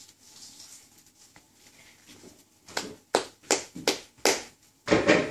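Hands clapping: five sharp claps, about three a second, followed near the end by a half-second rush of noise.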